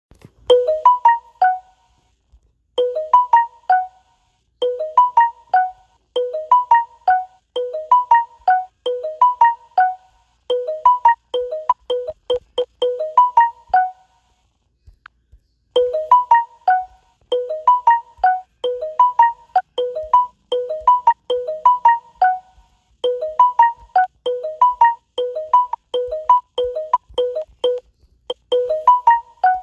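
A phone notification jingle, a short phrase of four or five quick notes, repeated again and again in quick succession, with a brief pause about halfway through.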